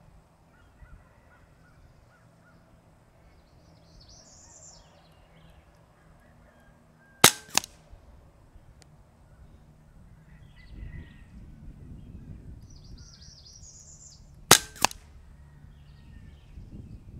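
Benjamin Marauder semi-automatic .22 PCP air rifle fired twice, about seven seconds apart. Each shot is a sharp crack followed about a third of a second later by a fainter click.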